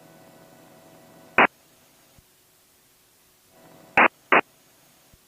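Aircraft radio audio in the headset: a faint open-carrier hum with steady tones, cut off by a short loud burst of static about a second and a half in, then after a quiet spell the hum returns and ends in two more short static bursts close together.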